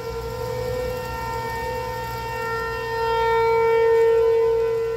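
Outdoor tornado warning siren sounding on a steady pitch. It grows louder about three seconds in and eases off again near the end.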